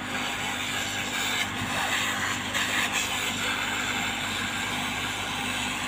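Hot air rework gun blowing steadily on a phone's display frame: a constant rushing hiss of air with a low hum underneath, heating the frame to soften the adhesive before the new screen is glued in.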